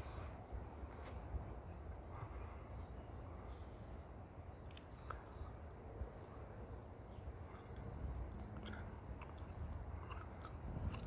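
A small songbird giving short, high chirps, repeated every second or so and thinning out later, over a steady low background rumble and a few faint clicks.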